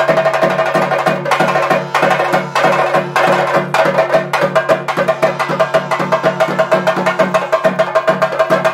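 Chende drums beaten with sticks in a fast, even rhythm of several strokes a second, over a steady held tone, as ritual drumming for a theyyam dance.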